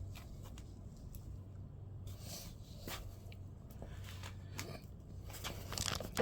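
Scattered light clicks, taps and rustles of hand work on a car-door mirror mount, over a faint steady low hum.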